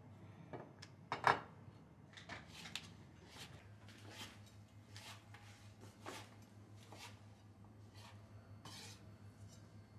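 Kitchen prep sounds: light knocks and clinks of utensils and dishes at a counter, irregular and roughly one a second, the loudest about a second in. A low steady hum comes in after about three and a half seconds.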